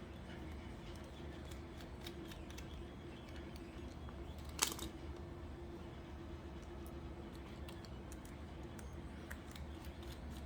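Light clicks and taps of small parts being handled while a pistol grip module's panels are fitted, with one sharper click about halfway through, over a steady low hum.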